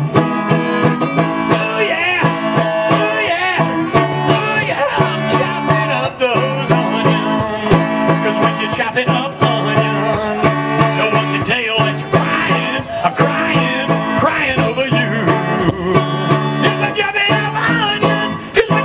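Live band playing an instrumental break in a country song: a banjo picked over a steady bass, with a wavering lead line on top.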